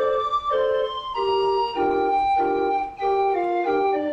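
Barrel organ with wooden pipes playing a tune, its chords sounding in short held phrases that change about every half second.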